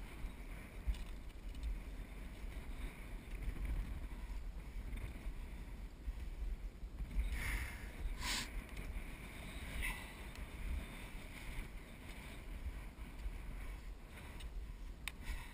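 Wind rumbling on a camera microphone while skiing downhill, with the skis hissing over the snow. Two brief, louder scrapes of the skis come a little past halfway.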